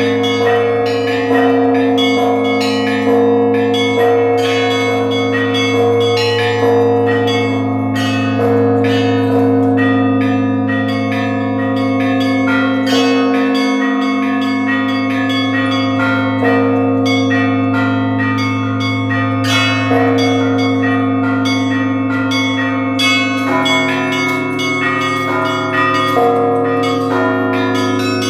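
Russian church bells rung by a bell ringer: quick, rhythmic strokes on the small bells over the steady hum of the larger bells. A deeper bell tone joins near the end.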